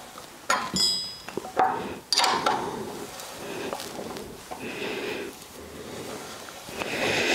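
Metal clinks and knocks from a wrench turning the threaded puller of a steering-bearing race removal tool in a motocross frame's steering head, winding the race out. A few sharp clicks in the first couple of seconds, one with a short metallic ring, then quieter turning and handling noise.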